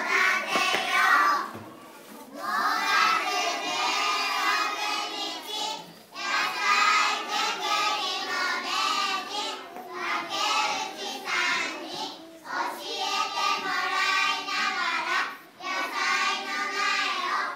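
A group of young children singing together in unison, in phrases of a few seconds with short pauses between them.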